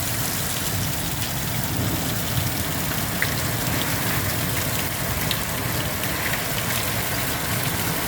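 Heavy rain pouring down: a steady, dense hiss with a few sharper drop ticks in it.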